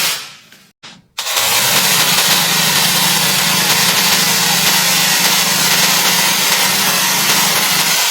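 Small chainsaw engine running steadily while cutting. It fades out at the start, goes quiet for about a second, then starts up again loud and steady.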